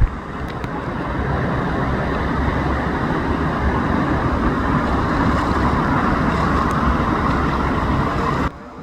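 Steady rushing water of a water-park river rapids ride, mixed with wind rumbling on the microphone; it drops off abruptly just before the end.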